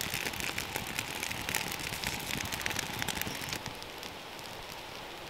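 Freshly lit campfire of split oak kindling crackling with many sharp pops and snaps. About three and a half seconds in, the crackling thins out into a quieter steady hiss.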